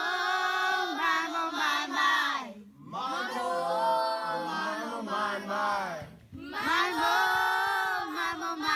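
A class of children singing a chant together, unaccompanied, in three long phrases with short breaks between them.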